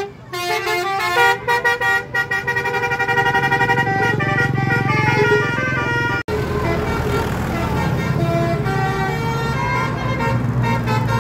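Bus telolet horns playing quick melodies of several stepped tones, short staccato notes at first and then longer held notes, over the low rumble of the bus engine. The sound breaks off abruptly about six seconds in, and another horn melody follows.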